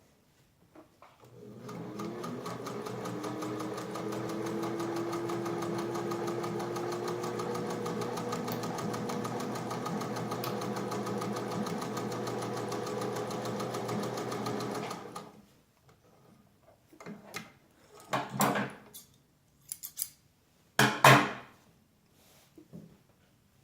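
Singer 201-2 sewing machine with its gear-driven potted motor, stitching through canvas. It speeds up over about a second, then runs steadily for about 13 seconds before stopping. A few short rustles and knocks follow, the loudest near the end.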